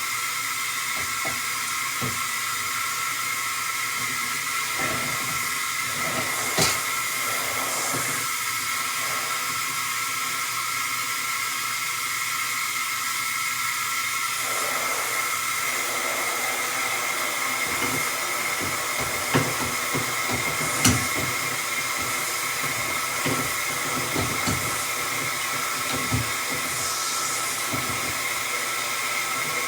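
Water spraying from a Waterpik Power Pulse shower head in a steady hiss, with a few light knocks and clicks scattered through it.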